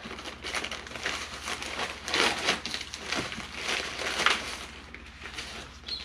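Packaging crinkling and rustling in irregular handfuls as accessories and manuals are unpacked from the box.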